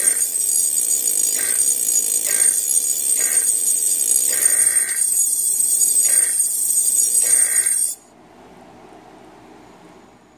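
High-voltage discharge in a homemade glass-bottle vacuum tube, with a parallel salt-water-and-bottle capacitor: a steady, high-pitched whine, broken every second or so by short buzzy pulses as the capacitor dumps across the tube, which is acting like a spark gap. The whine cuts off suddenly about eight seconds in, leaving a faint hum.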